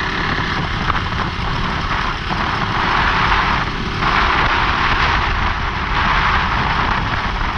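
Wind rushing over the microphone of a KTM RC390 motorcycle at speed, with road and engine noise mixed in. It swells louder about three seconds in and again a second later.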